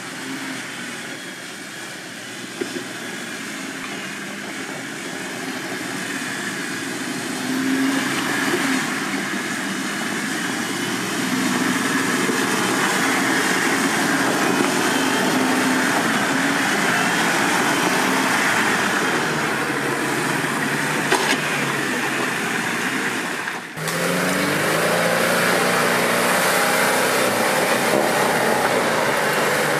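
Off-road 4x4 engine working under load as the vehicle climbs over rough ground, growing louder during the first several seconds, its pitch rising and falling with the throttle. About 24 s in the sound breaks off abruptly, and an engine is heard revving up again.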